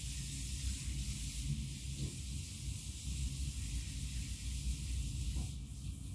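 Steady outdoor night ambience: an even hiss over a low, fluctuating rumble.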